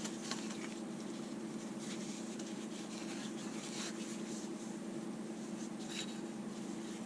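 Light scraping and faint clicks of small metal parts being handled: governor rack fingers fitted onto the rack tube. A steady low hum runs underneath.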